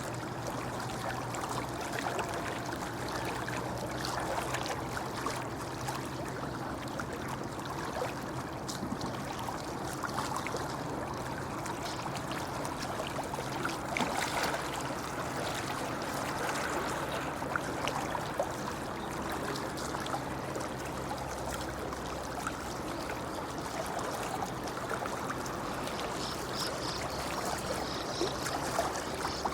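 Shallow brook babbling over stones: a steady rush of flowing water with small splashes and trickles.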